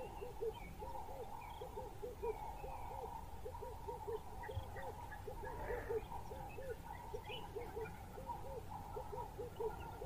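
Rapid, uneven series of short low hooting notes from a bird, about three or four a second, over a steady higher chirring with a few faint chirps above it.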